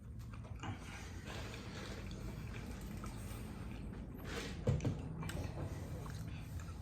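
Mouth sounds of eating burgers, wet chewing and biting, with a brief loud knock a little past the middle.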